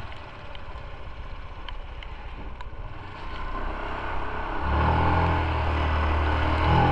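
Motorcycle engine pulling uphill: quiet at first, then growing louder from about halfway in, with a strong low drone for the last couple of seconds as it takes the load of a steep climb.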